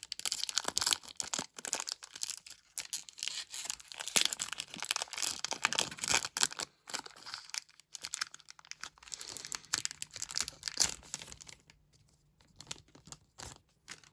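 Foil wrapper of a Pokémon card booster pack being torn open and crinkled by hand, a dense crackling that dies down to a few faint clicks about twelve seconds in.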